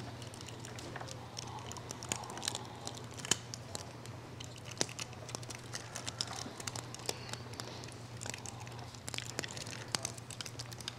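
Crinkling and crackling with many small, sharp clicks as communion elements are unwrapped and broken by hand close to the microphone, over a steady low hum.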